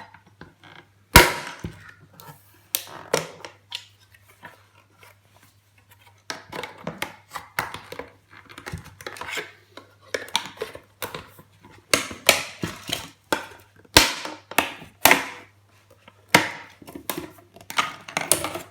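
A Wi-Fi box's plastic casing being pried at its clips and handled with a tool: irregular clicks, knocks and scraping, with sharp knocks about a second in and again near the middle.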